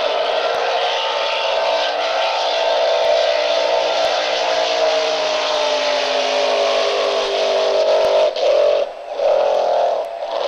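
Racing boat's engine running hard, its pitch falling slowly as the boat runs past and away. Near the end the sound dips and wavers.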